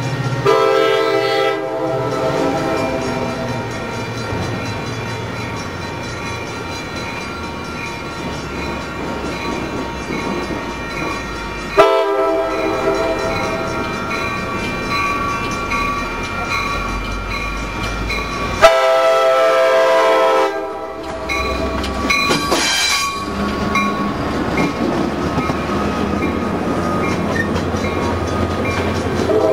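A Coaster F40PHM-2C locomotive's Nathan K5LA five-chime horn sounds three blasts of a second and a half to two and a half seconds each: near the start, about twelve seconds in, and about nineteen seconds in. The train's steady rumble fills the gaps between them.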